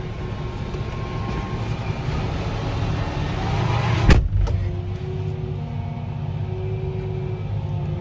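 Fendt 1050 Vario tractor's six-cylinder diesel running steadily under way, a low even hum. There is one sharp click about four seconds in, after which faint steady engine tones are heard.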